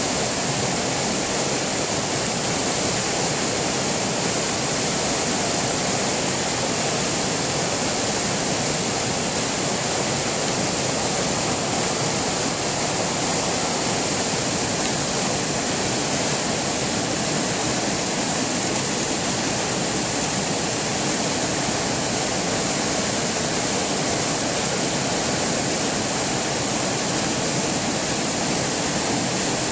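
River water pouring over a low weir into white-water rapids: a steady rushing of fast water.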